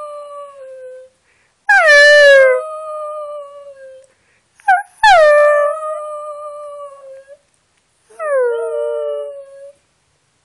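A small dog howling: three long howls, each starting high, sliding down in pitch, then holding and trailing off, with a short yip just before the second one.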